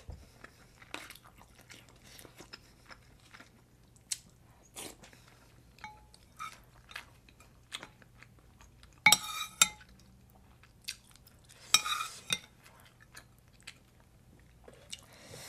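Close-up eating sounds: chewing with a full mouth and a metal spoon clinking and scraping against a ceramic pot of kimchi stew, with two louder bouts of spoon-and-pot clatter about nine and twelve seconds in.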